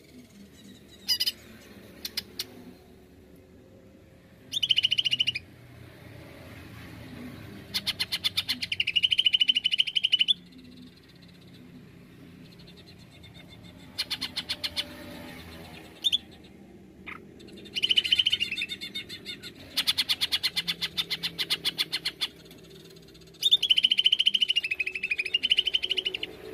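Male greater green leafbird (cucak ijo) singing: loud phrases of rapid repeated notes running into shrill held whistles. Six or so phrases, each a second or a few seconds long, come a few seconds apart, with a couple of short calls about a second in.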